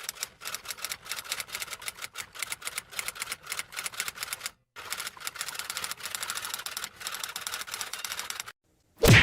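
Rapid, fast typing clicks played as a meme sound effect, with a brief break about halfway through. A short loud burst cuts in just before the end.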